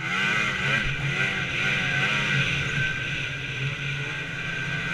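Snowmobile running along a trail, its engine speed rising and falling several times in the first couple of seconds, then holding steadier, with a steady high whine over it.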